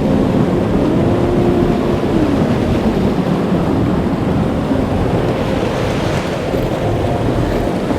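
Loud, steady rush of a rocky stream's water pouring over stones.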